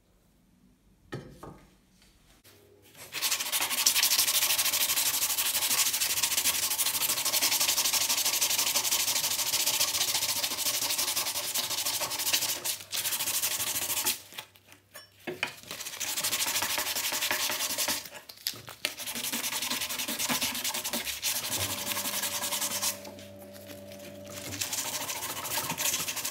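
Hand sanding of a trowel's steel blade with sandpaper: a steady scratchy rubbing in long runs, with two short pauses. Near the end the sanding moves to the wooden handle and goes quieter.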